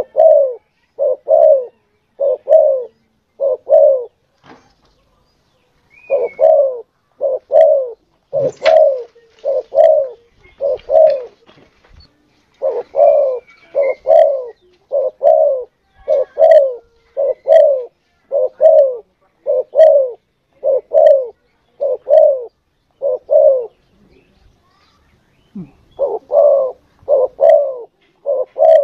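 Spotted dove (tekukur) cooing: long runs of short, low coos, about two a second, broken by pauses about four seconds in and again near twenty-four seconds in.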